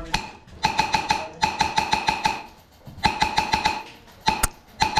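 Airsoft guns firing rapid semi-auto shots, about ten a second, in three strings with short pauses between them. A single sharp snap comes near the end.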